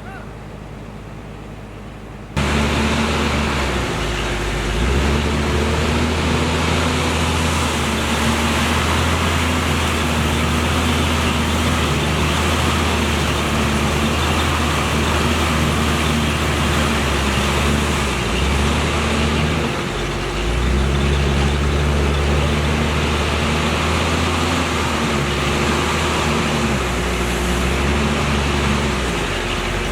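Heavy diesel engine of earthmoving equipment running steadily under load, its note shifting up and down as the machine works. It cuts in suddenly about two seconds in, after a quieter stretch.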